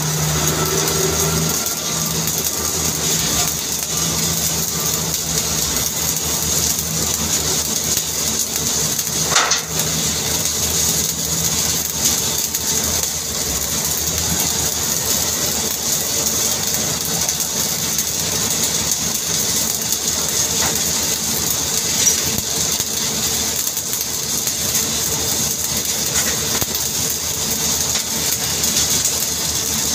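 Stick (shielded metal arc) welding arc crackling and hissing steadily during an overhead weld, over a steady low hum. One sharp click about nine seconds in.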